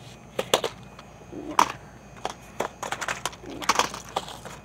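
Irregular crackles and clicks of plastic-wrapped merchandise being handled on pegboard hooks, about a dozen sharp crinkles, with the loudest about half a second and a second and a half in.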